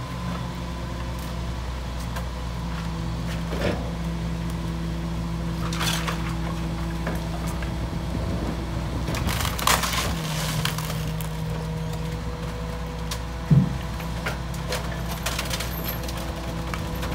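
Rear-loader garbage truck running steadily while broken wooden debris is thrown into its hopper, giving a series of knocks, crashes and splintering cracks. The sharpest crash comes about three-quarters of the way in.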